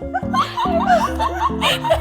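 Background music with laughter over it.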